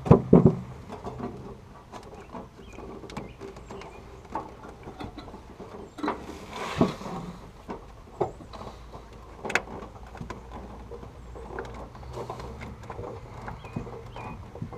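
Scattered knocks and clicks of hand tools and metal parts being handled while working on a pickup's fuel tank and lines, loudest at the very start, with a short rustle about six and a half seconds in.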